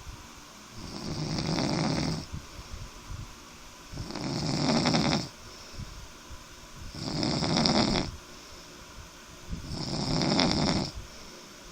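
A sleeper snoring: four loud, rasping snores about every three seconds, each lasting around a second, with quieter breathing between.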